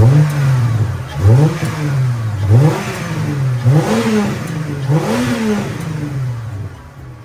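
Holden VY Commodore engine, freshly refitted, being revved in about five short blips, each rising and falling in pitch, before settling lower near the end.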